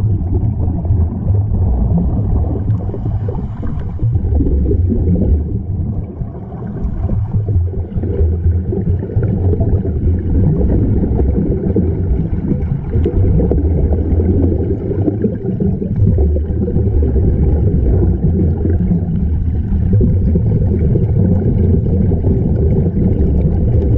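Underwater sound picked up by a camera below the surface: a loud, steady low rumble with air bubbling from the diving helmets, dipping briefly about six seconds in.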